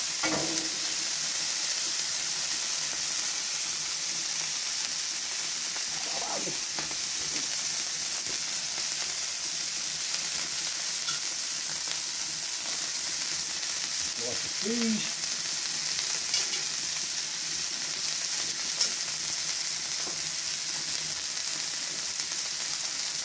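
Beef smash burger patties sizzling steadily in their fat on a hot flat-top iron griddle, just after being flipped.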